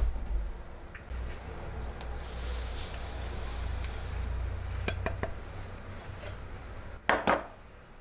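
Kitchen utensils rubbing and clinking against pots and dishes, with a few sharp clicks and a louder clatter near the end over a steady low hum.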